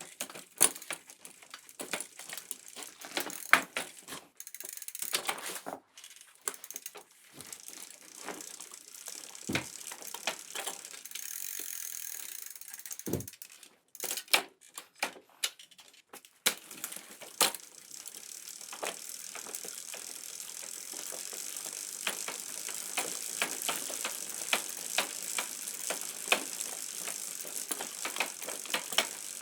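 Bicycle chain and freewheel: irregular clicks and rattles at first, then in the second half a steady rolling hiss of the wheels with rapid, even ticking of the freewheel ratchet.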